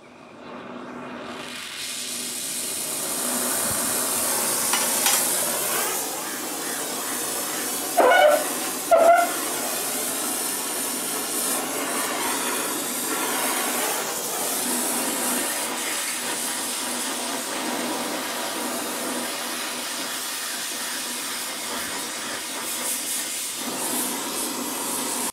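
Gas brazing torch hissing steadily as it heats a cast-iron bearing hub for a braze repair, the hiss building up over the first couple of seconds. Two short metal clinks about a second apart, a third of the way in.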